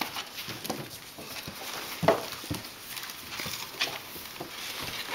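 Briard puppies scrabbling about in a wooden box: a run of light clicks and scratches from their claws and paws, with one louder sharp knock about two seconds in.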